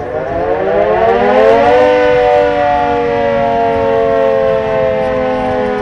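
Demolition warning siren sounding before the controlled implosion of a high-rise flat building: it winds up in pitch over about the first two seconds, then holds a steady wail.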